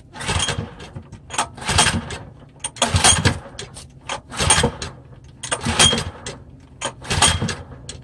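A 6 hp Subaru overhead-cam small engine being pull-started by its recoil starter: six hard pulls about a second and a half apart, each a short whirring crank, and the engine does not catch between them.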